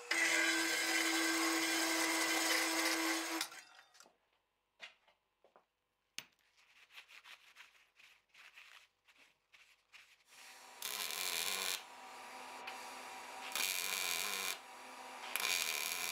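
A metal-cutting cold saw runs through steel bar stock with a steady tone for about three and a half seconds, then stops. Small clicks and knocks follow as the cut steel pieces are handled and stacked on a bench. From about eleven seconds, a MIG welder welds in three or four bursts of about a second each, over a steady hum.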